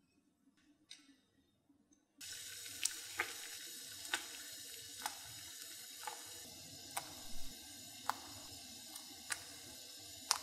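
A pot of water at a rolling boil, hissing steadily, as small potato-starch dough pieces are dropped in one at a time, each landing with a short splash about once a second. The boiling starts suddenly about two seconds in, after near quiet.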